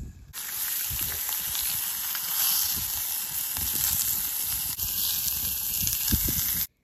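Sausage slices sizzling in oil in a cast-iron skillet over a campfire: a steady frying hiss that starts suddenly just after the beginning and cuts off abruptly near the end, with a few low thumps underneath.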